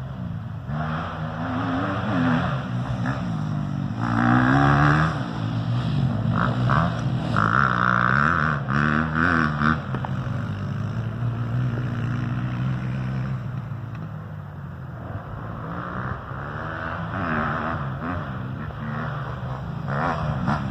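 Small 250 cc off-road vehicle engine running and being revved up and down repeatedly, with several louder stretches.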